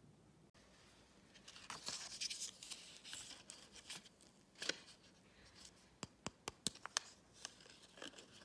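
Clear plastic cup being picked up and handled in the hands: scraping and rustling of the thin plastic, then a quick run of sharp clicks and taps about six seconds in.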